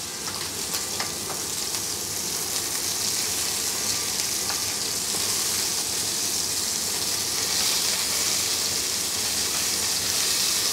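Lamb chops sizzling in oil in a nonstick frying pan on low heat: a steady frying hiss that grows a little louder through the second half. A few light clicks of metal tongs on the chops as they are turned.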